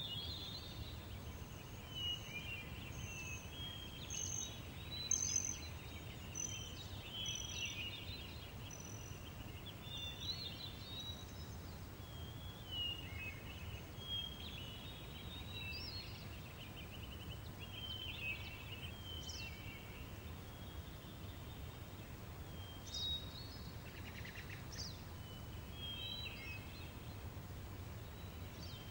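Outdoor ambience of small songbirds chirping and trilling in short, overlapping phrases, over a steady low rumble of breeze.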